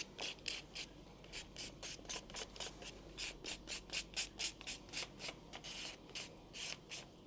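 Rapid rhythmic rubbing strokes, about four a second, kept up steadily throughout.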